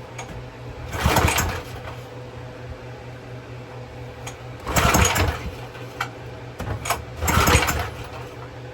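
3.75 HP Briggs and Stratton engine on a pressure washer being pull-started three times, each recoil-starter pull a brief rattling burst of cranking, with brake cleaner sprayed into the carburetor; the engine does not fire. A steady low hum runs underneath.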